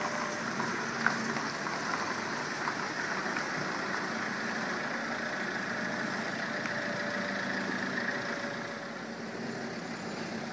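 Heavy lorry engine running steadily as it hauls a multi-axle abnormal-load trailer past, with one sharp click about a second in.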